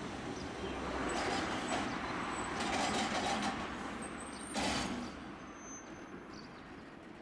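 Tosaden tram running with a steady rumble, three short hisses of air and a brief high squeal about four seconds in; the noise dies down near the end.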